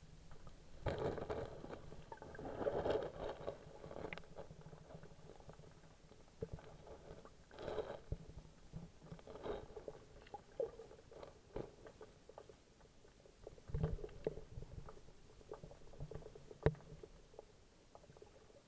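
Water moving around a submerged SJ4000 action camera in its waterproof case, heard muffled through the housing. It comes as irregular sloshing, rumbling bursts, with the loudest ones near the start and a few sharp clicks and knocks scattered through.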